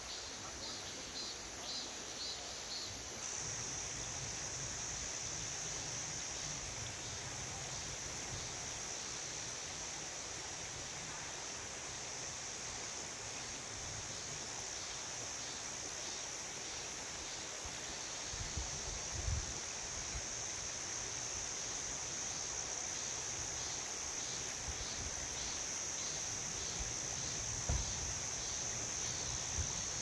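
Cicadas singing in a continuous high-pitched drone that comes in louder about three seconds in, over the steady rush of a mountain stream. A couple of brief low thumps come through late on.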